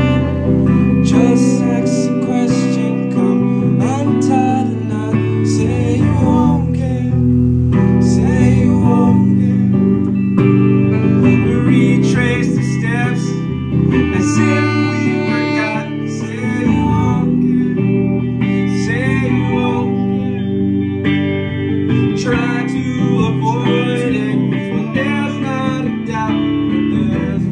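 A guitar-led song with plucked and strummed guitar and some singing.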